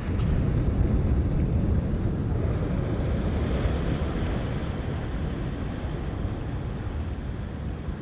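Sea surf washing against shoreline rocks, with low wind noise buffeting the microphone, the whole slowly easing in level.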